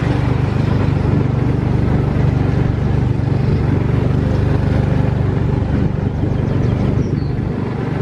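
Small engine of an amusement-park antique-style ride car running steadily as the car moves along.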